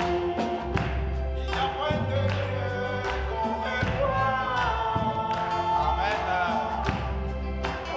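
Live gospel band playing a song: a woman's singing voice over electric guitar, bass and a drum kit keeping a steady beat.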